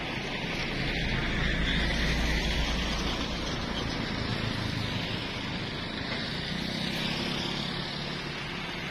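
Road traffic going past: a steady noise of vehicles, with one passing vehicle's rumble swelling loudest about two seconds in.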